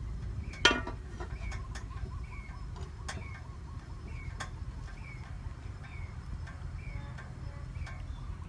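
An aluminium lid set onto a steamer pot with a single ringing metal clank about a second in. Behind it a short, high, falling chirp repeats about once a second over a low steady rumble.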